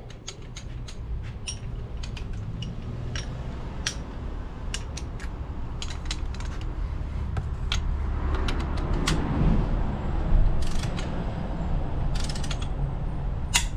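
Ratchet wrench clicking and tools clacking on metal as the mounting bolts of a new oil/coolant module are run down and tightened. Scattered sharp clicks, with two short runs of rapid ratcheting about three-quarters of the way through, over a steady low rumble.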